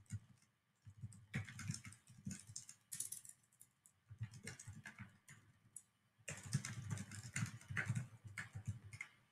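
Faint typing on a computer keyboard: runs of quick key clicks, with a short pause about six seconds in before a denser run of typing.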